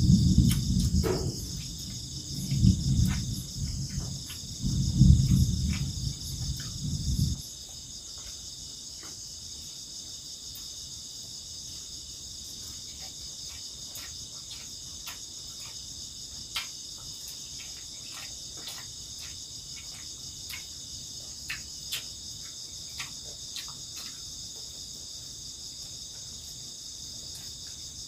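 Steady high chorus of night crickets. A low rumble fills roughly the first seven seconds, and small clicks and taps of a spoon on a plastic plate are scattered throughout.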